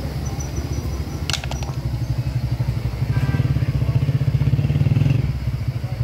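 Honda CD 70's small single-cylinder engine running with a fast, even putter, growing louder about halfway through and easing off near the end. A few metallic clicks sound about a second in.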